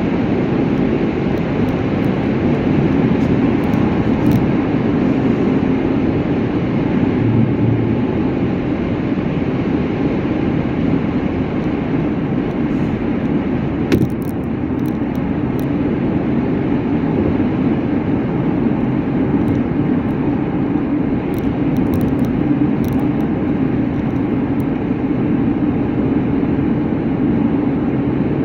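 Steady road and engine noise of a vehicle travelling at speed, heard from inside, with a single short click about halfway through.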